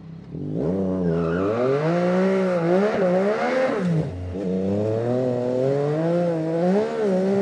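Yamaha Tracer 9 GT's 890 cc inline-three engine pulling away hard, revving up through the gears, its pitch climbing and dropping back at each gear change.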